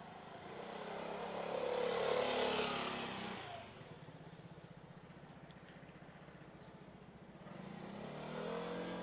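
Motor vehicles passing close by on a narrow street: one swells up and passes about two seconds in, an engine runs steadily with a low pulsing in between, and another vehicle approaches and passes near the end.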